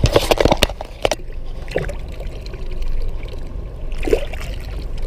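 Water splashing and trickling against a small boat as a fish is handled for release. A cluster of knocks and clatters comes in the first second, and a couple of softer knocks follow later.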